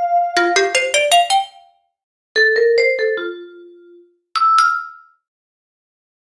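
Short, upbeat multimedia notification jingles with bright bell-like notes, played one after another with silence between them. A fast run of notes comes first, then a second jingle that falls to a low note, then a brief two-note chime near the end.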